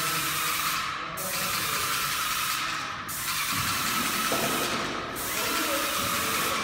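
Wagner ProSpray 24 airless paint sprayer spraying acrylic paint through its spray gun: a steady hiss whose upper part dips briefly about every two seconds.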